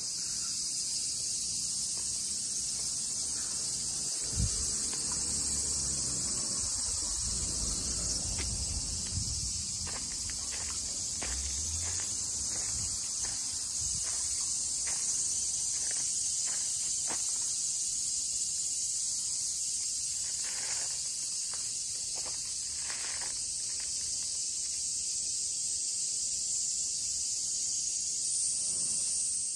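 A steady chorus of cicadas singing in the trees, with footsteps on a gravel path in the middle stretch.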